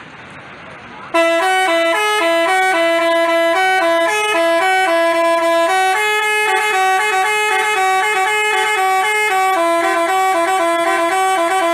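Basuri telolet bus horn playing a quick, stepping melody of loud, reedy horn notes. The tune starts about a second in, after a quieter hiss.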